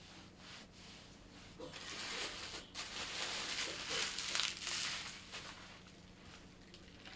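Packaging crinkling and rustling as it is handled, building up about a second and a half in and dying away near the end.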